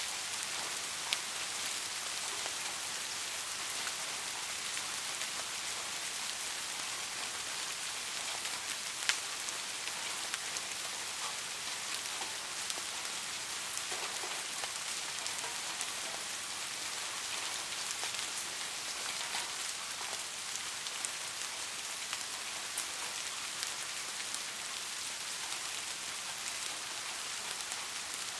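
Steady rain falling, an even hiss with a few louder single drops ticking, the clearest about a second in and about nine seconds in.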